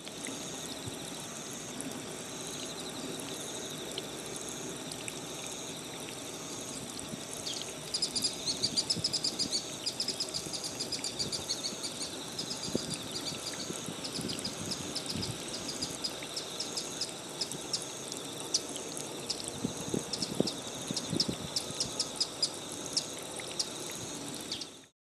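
Outdoor ambience of insects singing: one steady high whine and one high chirp pulsing about once a second. About eight seconds in, a rapid high twittering of bird or insect calls joins, followed by many sharp high ticks.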